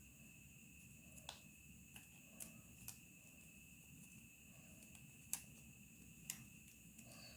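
Near silence with a few faint, sharp clicks of origami paper being handled and creased, about five in all, over a steady faint high-pitched whine.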